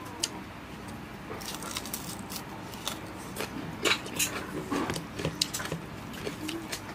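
Close-up eating sounds: fingers mixing rice and chicken on a steel plate and a mouth chewing, a run of small wet clicks and smacks.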